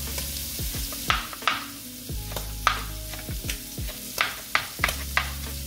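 Chef's knife chopping fresh parsley on a plastic cutting board: a series of irregular sharp knife strikes. Under them is the steady sizzle of shrimp frying in a pan.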